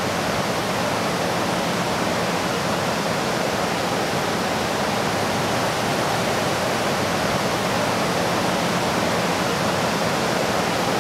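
Steady, even rushing noise that holds unchanged throughout.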